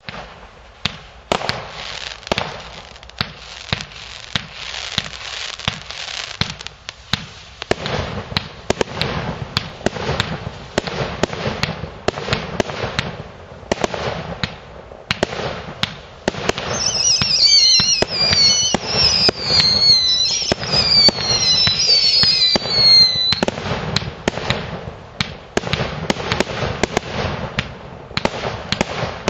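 GIMAT TB222 Tropic consumer fireworks battery firing: a rapid, irregular string of shots and bursting pops, thickening after about 8 seconds. Midway, for about seven seconds, several whistles fall in pitch one after another over the bangs.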